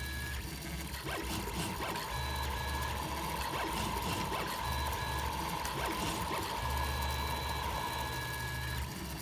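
FDM 3D printer's stepper motors whining steadily as the print head moves during printing, with a low hum from the motors that starts and stops every second or two as the moves change.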